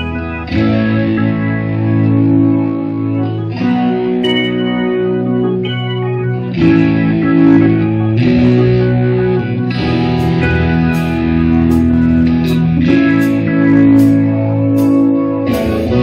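A live rock band plays an instrumental passage: electric guitar and a Roland VR-730 organ keyboard hold chords over drums, changing every few seconds. From about ten seconds in, regular cymbal strikes ring out over the chords.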